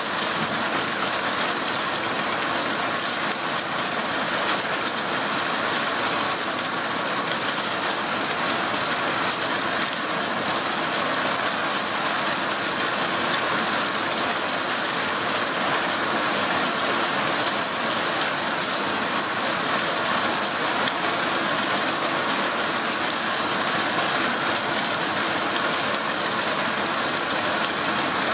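Heavy rain with hail pelting down during a storm: a loud, steady, dense patter of impacts that does not let up.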